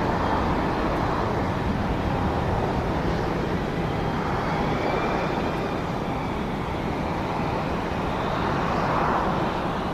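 Airbus A319-132 jet airliner's IAE V2500 turbofan engines at takeoff thrust: a steady roar with faint high whining tones that drift slowly in pitch.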